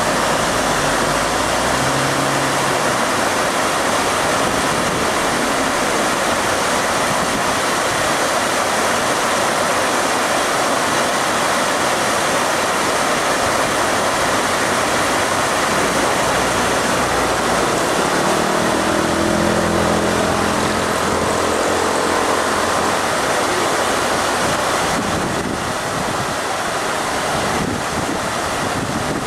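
Steady rush of water flowing along a narrow stone-walled canal. A low engine hum rises and fades about two-thirds of the way through.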